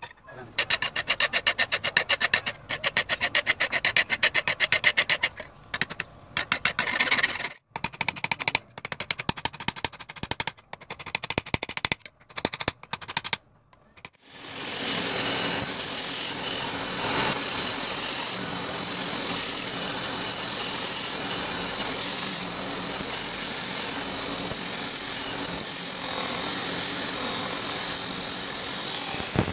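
Runs of rapid hand-tool strikes on a knife lying on a wooden block, with short pauses between them. About halfway in a belt grinder takes over, running steadily as the knife's handle is ground against the belt.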